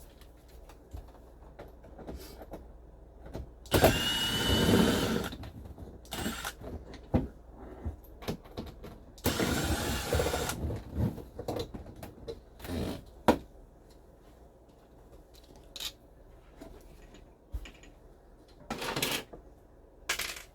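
Power screwdriver or cordless drill running in two bursts of about a second and a half, backing screws out of the dash panels. Short clicks and knocks of plastic trim and tools come between the bursts.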